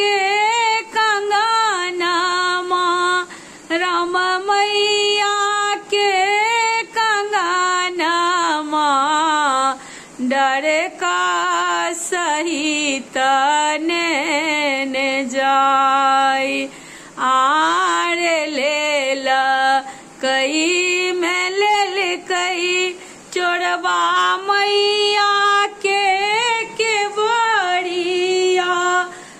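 A woman singing a Maithili samdaun, a farewell song to the goddess Bhagwati, solo with no instruments heard. Her long, bending phrases are broken by short pauses for breath every few seconds.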